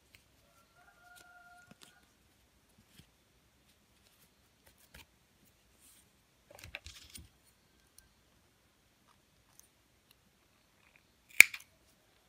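Quiet handling of a crocheted yarn piece, with soft rustling about halfway through, then a single sharp snip of spring thread snips near the end.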